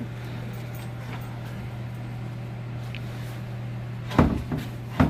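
Knocks and bangs of a plastic calf warmer box being worked at its side, the two loudest about four and five seconds in, like a panel or cover being shut, over a steady low hum.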